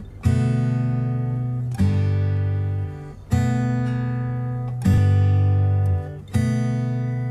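Background music: acoustic guitar strumming chords, a new chord struck about every second and a half and fading until the next.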